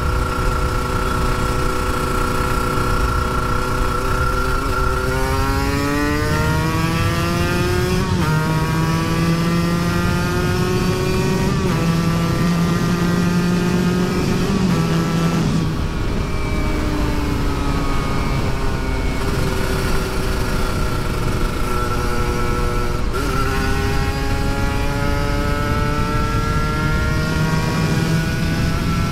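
Kawasaki Ninja RR 150's single-cylinder two-stroke engine, with an oversize-bore block on the stock carburettor, under hard acceleration. Its note holds steady at first, then climbs through the gears with three sudden drops at the shifts, runs level for a while, and climbs again near the end.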